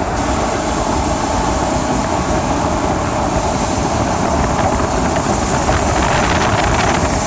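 Inside the cab of a Ford E250 van with the 5.4L V8, driving: steady engine and road noise carrying a hum. The hum shows up only while driving and swells when coming off the gas; its cause is unknown, and the owner leans towards an engine fault.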